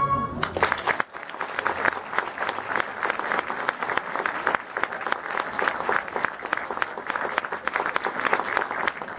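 Audience applauding, with many hands clapping steadily, after music cuts off just after the start.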